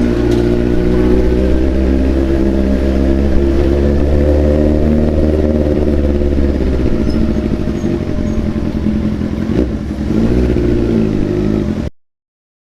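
Large sport motorcycle's inline-four engine running loud at low, fairly steady revs through a free-flowing exhaust, its pitch swelling gently and rising briefly about ten seconds in. The sound cuts off abruptly near the end.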